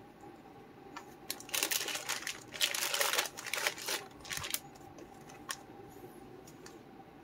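Plastic model kit packaging being handled: crinkling plastic bags and small clicks of plastic parts, with a stretch of rustling in the middle.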